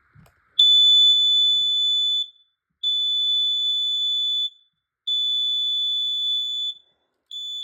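Smoke alarm sounding on a test press: three long, high-pitched beeps of about a second and a half each, then a short stuttering run of chirps near the end.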